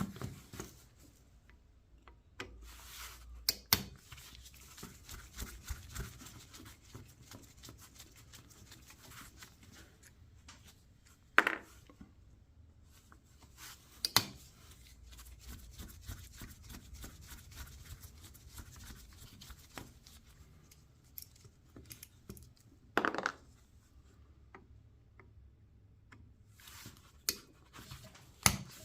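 Small metal carburetor parts and hand tools clicking, knocking and scraping as a small engine carburetor is taken apart by hand: scattered sharp clinks, a few louder knocks, and quieter rubbing between them.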